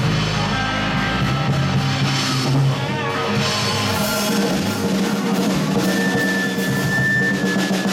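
Live blues-rock band playing electric guitars over a drum kit, with a long high note held near the end.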